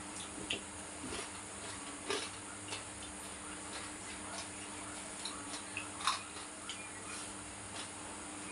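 Scattered small clicks and taps of people eating at a table: fingers and utensils against plates and bowls, with some chewing, over a steady low hum.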